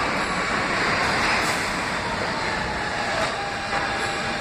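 Kawasaki R160B subway train running past the platform on its rails with a steady rolling noise; it eases off slightly near the end as the last car goes by.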